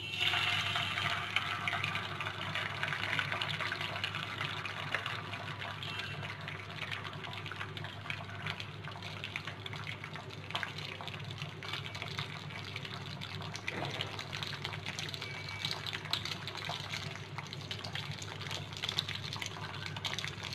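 Beaten egg sizzling and crackling in hot oil in a frying pan. It starts sharply as the egg is poured in, is loudest in the first few seconds, then settles to a steady sizzle as the egg sets.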